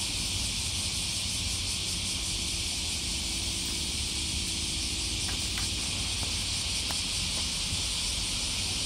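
Cicadas in a dense, steady chorus, a high hiss that holds level throughout, over a low rumble.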